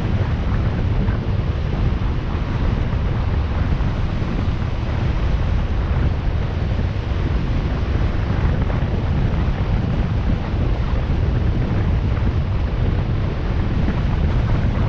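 Steady wind noise buffeting the microphone of a moving motorcycle, a low, even rush with no engine note standing out.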